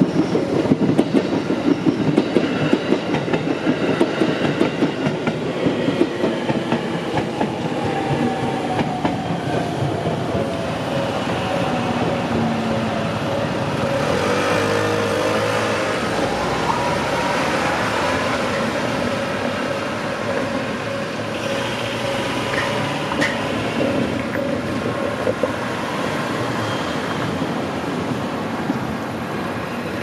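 Electric train passing over a level crossing: a loud, rapid clatter of wheels over the rail joints for the first several seconds, then a steadier running sound with a held tone as it moves away. The crossing's warning bell rings while the barriers are down.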